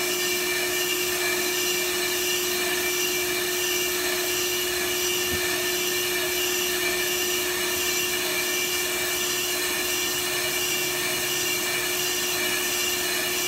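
Brake lathe running steadily while it resurfaces a brake rotor, with a constant mid-pitched hum and a dense steady hiss from the cut.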